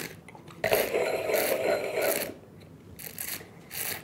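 A taster slurping red wine, drawing air through it in the mouth to aerate it: one loud, gurgling slurp of about a second and a half, then two short, quieter ones near the end.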